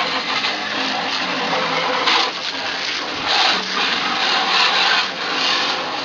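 Garden hose spray nozzle spraying water onto a sheet-metal furnace blower housing, rinsing it down: a steady hissing spray that surges a little as the stream moves over the metal.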